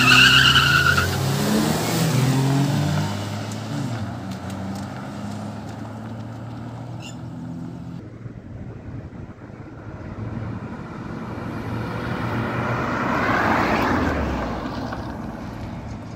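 Two 1.2-litre petrol hatchbacks, a Maruti Suzuki Swift and a Tata Tiago, launching hard together with a brief tyre squeal in the first second. Their engines rev up through the gears and fade as the cars pull away. Later a broad rushing swell rises and dies away again.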